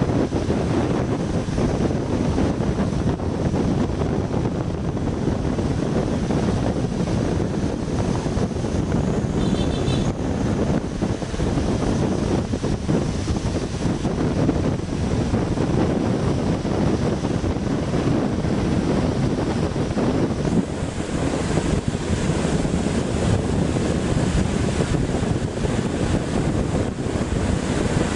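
Steady wind noise buffeting the microphone over the low rumble of a bus driving along a road.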